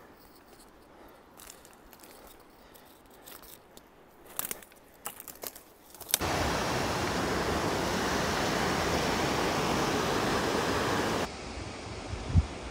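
Faint scattered crunches and clicks, then about six seconds in a sudden, loud, steady rush of water that drops to a quieter hiss near the end, with a short thump just before the end.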